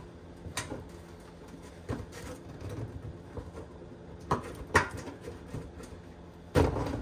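Plastic fender liner and bumper edge on a Honda Accord being worked into place by hand: scattered plastic clicks and knocks, the loudest a little past the middle, and a longer burst near the end.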